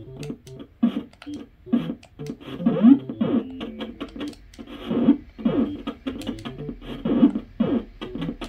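8-bit Famicom game audio: bleepy chiptune music with short punch sound effects and quick falling blips as the fighters trade blows.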